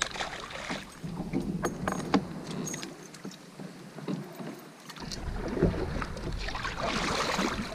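Light knocks and clicks of gear on a sit-on-top fishing kayak, over lapping water. About five seconds in, wind starts rumbling on the microphone, and there is a splash of water near the end.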